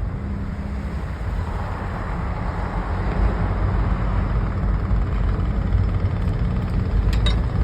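Heavy road-construction machinery running with a steady low engine rumble, with a couple of sharp clicks about seven seconds in.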